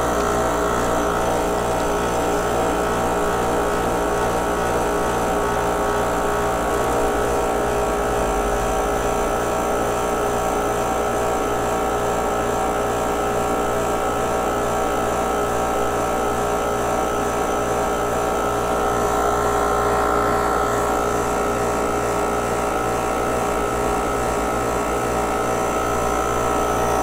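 Mastercool 69110 A/C recovery machine's compressor running steadily in recovery mode, pulling refrigerant out of the car's A/C system into the recovery tank: a continuous hum with a regular fast pulse underneath.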